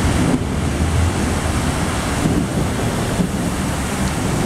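Cars driving through deep floodwater on a road, their tyres throwing up water in a steady rushing splash, with wind buffeting the microphone.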